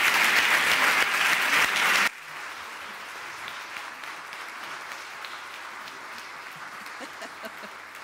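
Audience applauding, which breaks off suddenly about two seconds in. After that only faint scattered claps and room noise remain.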